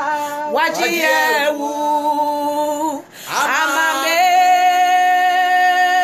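Women singing a worship song unaccompanied, drawing out long notes; a short break for breath about three seconds in, then one long held note.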